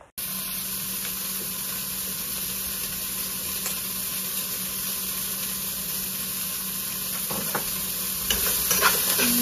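Beef sizzling steadily in a frying pan for beef and broccoli, over a faint low hum, with a few light clicks and taps near the end.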